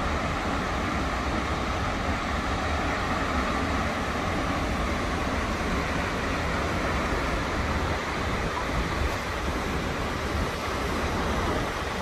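Takakkaw Falls, a tall waterfall plunging down a cliff face, giving a steady loud rushing noise with a deep rumble underneath.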